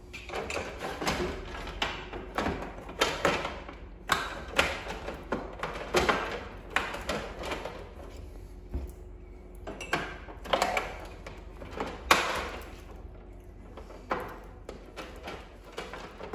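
Irregular knocks, clicks and short scrapes of a cat window insert's PVC panel and extrusions being pushed and clipped into a sliding door frame, the loudest knock about twelve seconds in.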